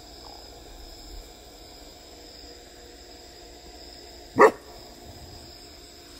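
A dog's single short bark, about four seconds in, over a faint steady high chirring of crickets.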